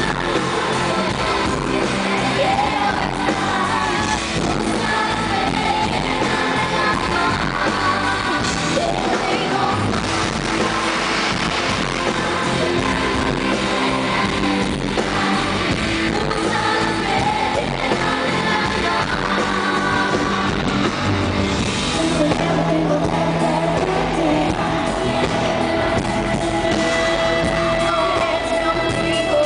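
Live pop-rock band with a woman singing lead, heard from the audience in a large hall. Near the end she holds one long high note.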